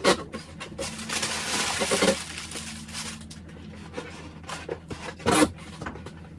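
Packaging of a ring light being handled during unboxing: a sharp knock, then about two seconds of rustling and scraping, and another short loud scrape near the end.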